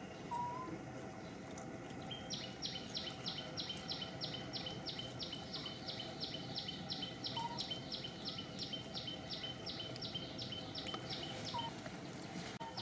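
High chirping call repeated about four times a second, starting about two seconds in and stopping near the end, over steady outdoor background noise. A few short whistled notes come and go.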